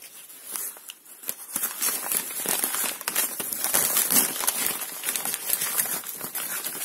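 Crumpled paper wrapping crinkling and rustling as hands handle it and reach for a paper-wrapped package, with many irregular crackles.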